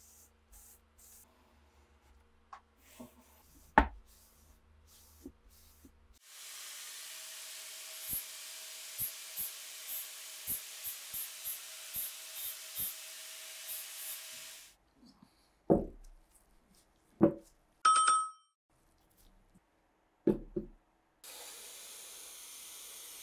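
Workshop handling of old rifle parts: light clicks and a sharp knock, then a steady hiss with a faint hum and light ticks for about eight seconds. Next come several knocks of metal and wood parts and a short metallic ring. Near the end a steady spray hiss starts as degreaser is sprayed onto the rusty steel receiver.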